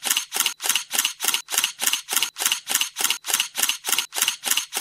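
A rapid, even series of sharp clicks, about four a second.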